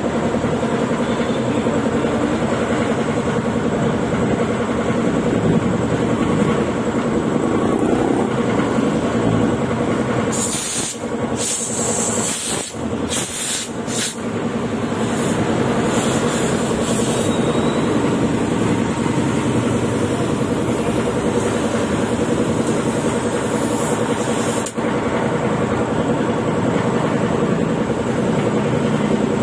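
Compressed air hissing in several short blasts from about ten to fourteen seconds in, then more faintly until about twenty-five seconds in, over a steady background rumble.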